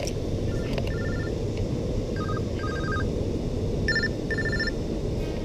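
Cell phone ringing: a short ringtone phrase of high beeping notes, heard three times about a second and a half apart, over steady low background noise.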